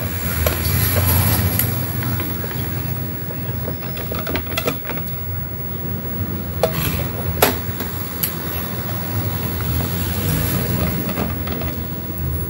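A screwdriver working screws out of the plastic housing of a JBL portable speaker: scattered small clicks and scrapes, two sharper clicks a little past the middle, over a steady low rumble.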